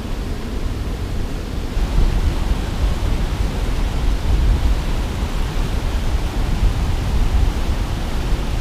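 Steady rushing of turbulent, churning water below a dam outflow, with wind rumbling on the microphone. The water grows louder about two seconds in.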